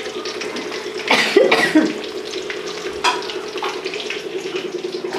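Pieces of fish deep-frying in a pan of hot oil, sizzling steadily, while a spoon stirs them. There are a few louder clatters about a second in and again around three seconds.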